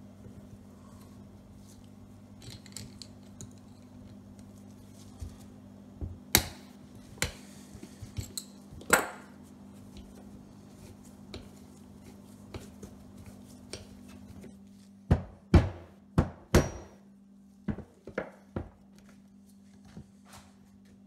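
Knocks and clatter of hand tools and metal engine parts on a wooden workbench as a small two-stroke engine's cylinder is worked loose. About fifteen seconds in comes a run of four loud, sharp knocks, then a few lighter ones, all over a steady low hum.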